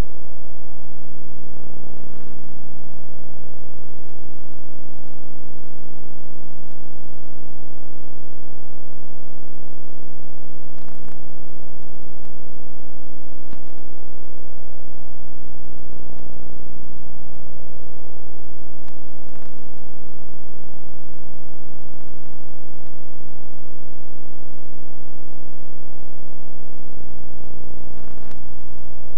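A loud, steady electrical hum with several even tones that never changes, broken by a few faint clicks.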